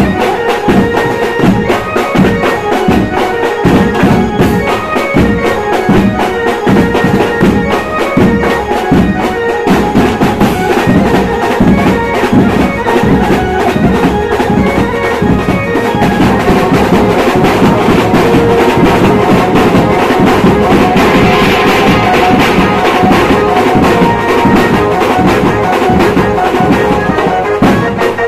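Loud band music: fast, dense drumming under a melody of long held notes.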